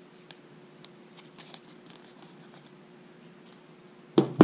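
Brass ball valve handled and set down on a paper-covered wooden workbench: faint rustling and small clicks, then two loud knocks in quick succession near the end as it comes down.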